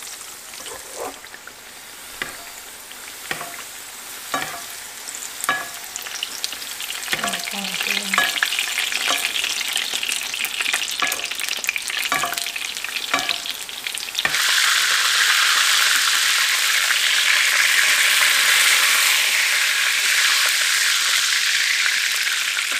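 Hot oil sizzling in a frying pan around a frying dough flatbread stuffed with minced meat, with a metal spoon clinking and scraping about once a second as oil is ladled over the top. About fourteen seconds in, the sizzling jumps suddenly much louder and stays steady.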